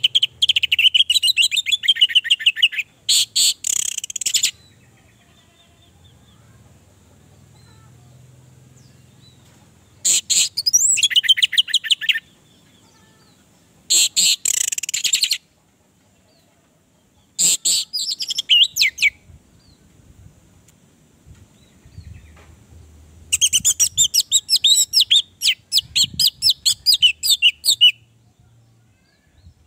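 Orange-headed thrush singing loudly in short phrases of rapid, fast-repeated notes. The phrases come a few seconds apart with quiet gaps between them, and the longest comes near the end.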